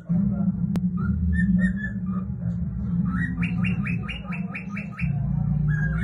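Male cockatiel whistling its song: short whistled notes, then a quick run of about eight rising chirps, roughly five a second, in the second half, over a steady low hum.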